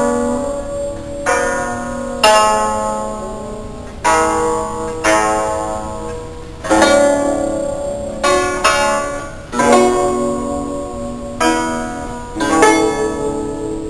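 Guzheng (Chinese zither) played solo: plucked notes and chords struck every second or two, each ringing out and fading before the next.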